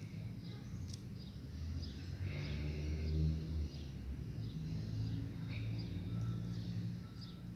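Birds chirping and calling in short scattered notes over a low rumble that swells about three seconds in.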